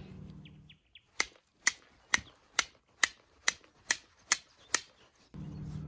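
A hand-held piece of dark chert struck sharply over and over: nine crisp clicks with a short ringing note, about two a second.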